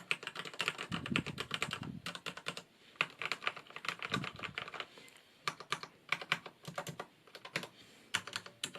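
Typing on a Corsair K68 mechanical keyboard with Cherry MX Red linear switches, whose switches are shielded by silicone covers. Keystrokes come in quick runs for the first few seconds, then in shorter, sparser groups after a brief pause.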